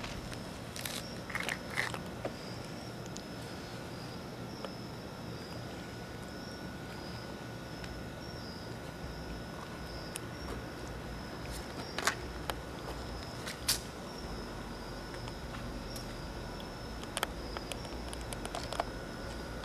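Crickets chirping steadily in a high, pulsing trill, with a few sharp clicks and knocks over it, the loudest about twelve and fourteen seconds in.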